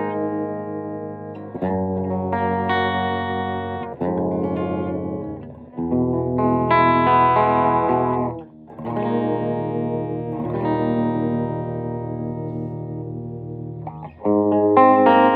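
Electric guitar played through a vintage Magnatone M14 stereo tube amp: slow strummed chords, each left to ring and fade, with a new chord every two to four seconds. The held notes pulse with a wobble.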